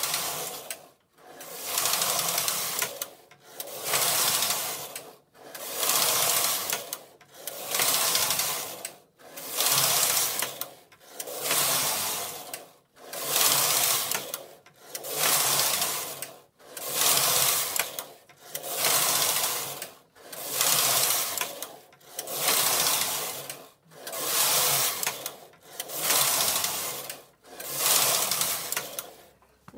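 Silver Reed punchcard knitting machine knitting lace: the carriage is pushed back and forth along the metal needle bed, a mechanical running noise on each pass with a brief pause at each end. There are about fifteen passes, one every two seconds or so.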